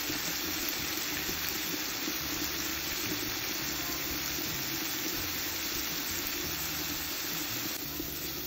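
Sliced mushrooms and red onion frying in butter in a nonstick pan, sizzling steadily as flour is sprinkled over them and stirred in, over a steady low hum.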